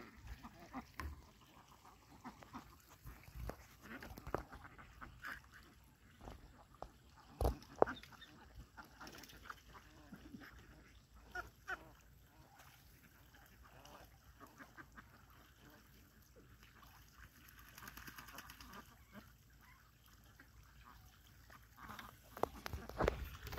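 A flock of domestic ducks quacking now and then, scattered short calls at a low level, with two louder sharp knocks about seven and a half seconds in.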